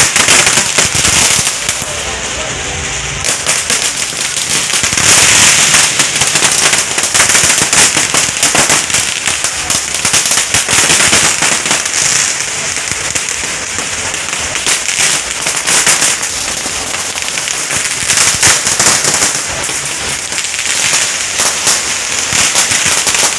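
Strings of firecrackers going off in a dense, unbroken rattle of rapid bangs, swelling and easing in loudness, with voices underneath.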